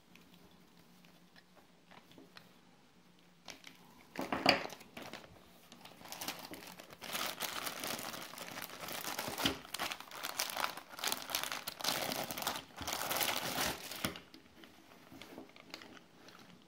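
Clear plastic packaging bag crinkling and rustling as a chest-harness camera mount is handled and pulled out of it. There is a short sharp crinkle about four seconds in, then steady crinkling from about six seconds in until about fourteen seconds in, after which it falls to faint handling sounds.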